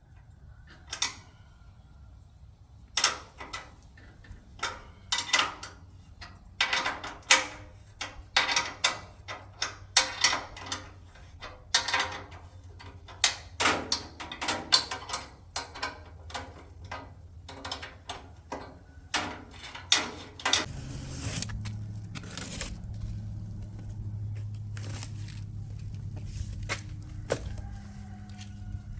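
Metal clanks and knocks from hardware being handled and fitted on a trailer-mounted chainsaw rack, many sharp hits in quick succession. A steady low hum starts about twenty seconds in.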